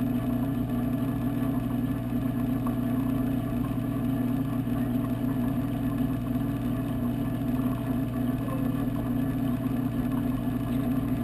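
Steady, unbroken hum of aquarium pump motors heard underwater through a GoPro's waterproof housing.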